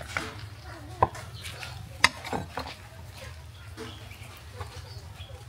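A few sharp knocks and clicks of things being handled, the loudest about one second and two seconds in, over a faint steady low hum.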